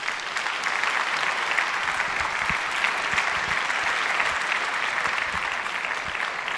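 Audience clapping steadily, a dense patter of many hands that swells in the first second and eases off slightly near the end.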